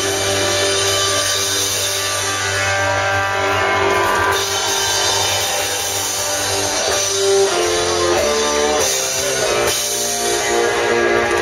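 A live band playing an instrumental passage on electric guitar, bass and drum kit, with no singing. A run of notes steps downward a little past the middle.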